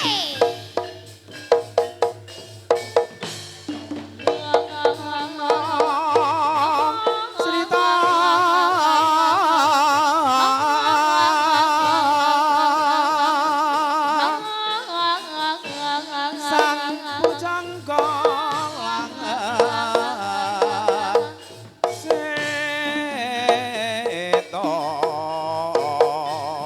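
Javanese jaranan dance music: hand drums beating a quick rhythm under a wavering melody line that holds long, shaking notes through the middle, with the drum strokes coming to the fore again later.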